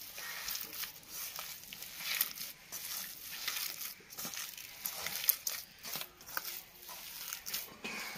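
A hand mixing and kneading raw minced beef, beef fat and ground spices in a metal bowl: a run of irregular short, crackly squishes.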